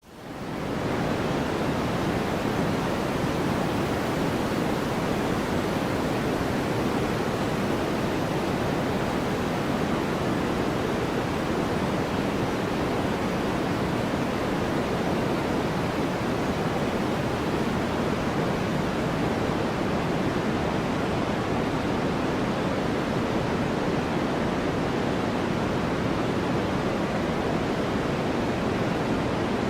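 Steady white-noise track: an even, unchanging hiss weighted toward the lower-middle range, fading in over the first second.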